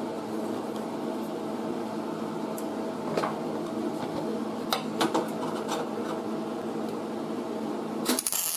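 Steady machine hum with a few light clicks, then near the end a MIG welding arc strikes on auto body sheet metal with a short loud crackle, the first spot of an overhead butt weld.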